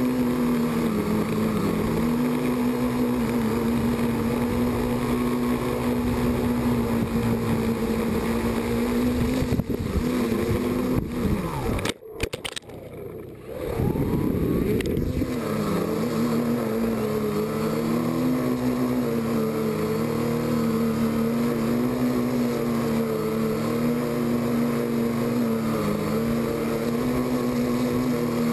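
Quadcopter's electric motors and propellers humming loudly, heard close up from the onboard camera, the pitch wavering up and down. About twelve seconds in the motors drop out with a few knocks as the quad comes down on the gravel. A rising whine follows as they spin back up, and the steady hum returns.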